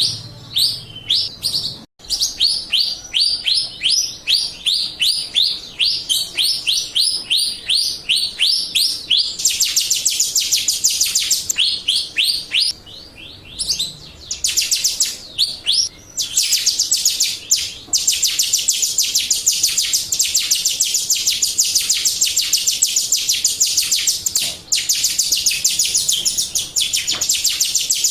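Jalak Rio starling singing: a run of quick, repeated down-slurred whistles, then about a third of the way in a switch to a fast, dense, high chattering trill that goes on with a couple of brief pauses. It is a lure recording played to draw caged birds into singing.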